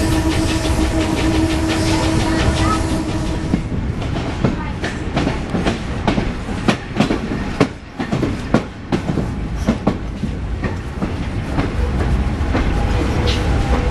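Vintage railway carriages of a museum steam train rolling along the track. A steady ringing tone from the wheels on the curve stops a few seconds in, and the wheels then clatter with irregular clicks and knocks over rail joints.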